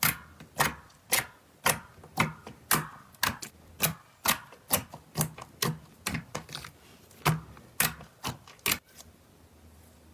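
Slime being worked by hand, giving a steady run of sharp clicking pops, about two a second, that stop near the end.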